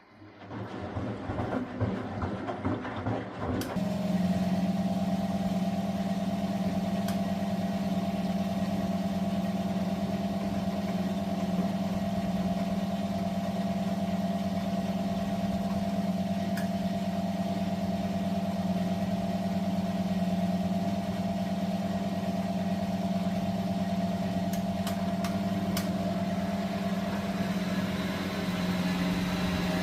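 Miele W423 washing machine running: an irregular knocking and rumbling for the first few seconds, then about four seconds in a steady motor hum starts and holds at one pitch.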